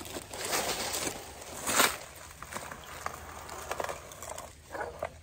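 Scraping and metallic clicking as a hand-lever T-post puller is pumped on a steel fence T-post, gripping and lifting it. A louder scrape comes just under two seconds in, then scattered light clicks.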